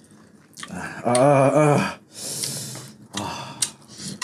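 A man's drawn-out wordless groan with a wavering pitch, followed by a sharp hissing breath through the teeth, the usual reaction to a burning mouth from very spicy food.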